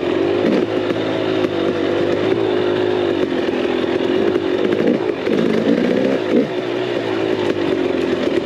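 KTM 300 XC's two-stroke single-cylinder engine running at low revs while riding slowly, its pitch wavering as the throttle is rolled off and on, with a few brief dips in revs, most of them past the middle.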